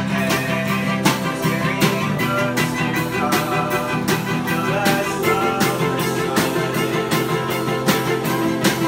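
Small acoustic band playing: acoustic guitar, electric keyboard and two violins over a drum kit keeping a steady beat on snare and cymbal.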